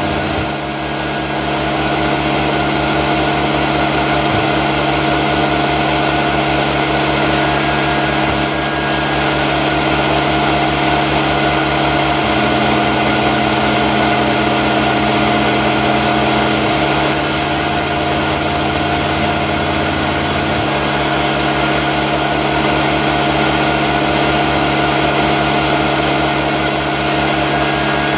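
Milling machine running with a hand-ground T-cutter, made from an old blunt end mill, taking a continuous cut in a workpiece held in a vise. Steady motor and spindle hum with cutting noise and a fast low pulsing.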